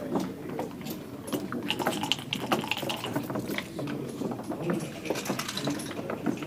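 Backgammon checkers and dice clicking and clattering irregularly, over a low murmur of voices in the room.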